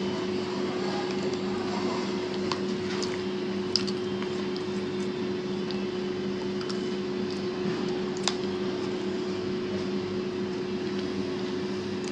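Steady mechanical hum from a household machine such as a fan or air conditioner, with a few light clicks, two of them sharper, about 4 and 8 seconds in.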